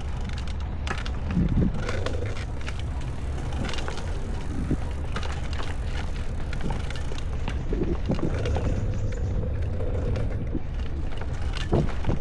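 Bicycle being ridden: a steady low rumble of wind and road noise, with scattered light clicks and rattles.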